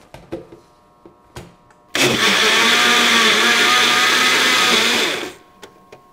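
Single-serve personal blender: a few clicks as the cup is seated on the base, then the motor runs steadily for about three seconds, blending ice cream and milk into a shake, and stops abruptly.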